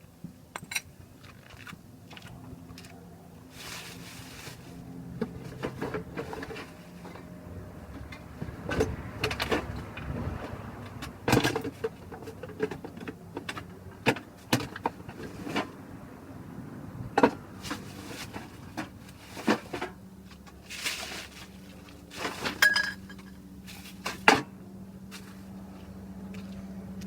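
Hand tools and metal parts clinking and knocking at irregular intervals as a motorbike's drive train is worked on, with a faint steady hum underneath.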